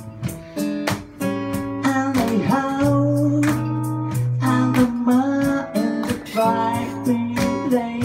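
Acoustic guitar strummed in a steady rhythm, with a voice singing a melody over it from about two seconds in.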